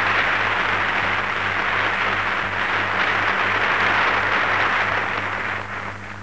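Audience applauding in a large hall, a dense steady clapping that starts just before and fades out near the end, over a steady low hum of an old film soundtrack.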